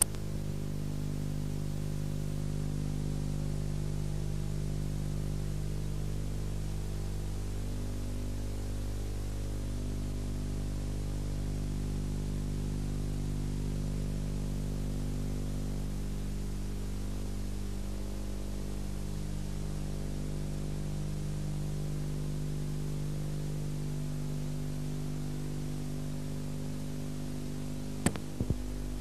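Steady electrical hum over an even hiss: the background noise of an old video recording's soundtrack, with no game sound heard. Two or three sharp clicks come near the end.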